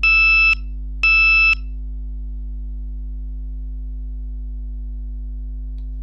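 Dexcom continuous glucose monitor's high alert, warning of high blood glucose: two beeps, each about half a second long and a second apart, each a pitched tone with bright overtones. A steady low hum runs beneath.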